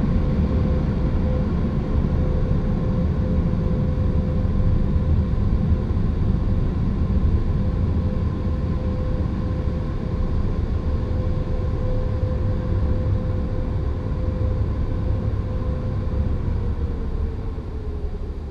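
Car wash air dryer blowers running: a loud, steady rush of air with a low rumble and a steady whine. Near the end the whine sags in pitch and the sound fades a little.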